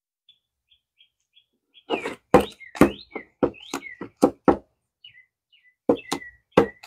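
A metal spoon stirring dry soil in a plastic cup, knocking sharply against the cup's side about four times a second for a couple of seconds, then a few more knocks near the end. A bird chirps faintly in short repeated notes.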